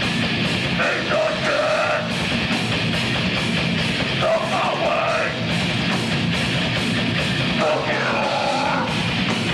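Live heavy rock band playing loud: electric guitar, bass guitar and drums, with a singer's vocals coming in three short phrases.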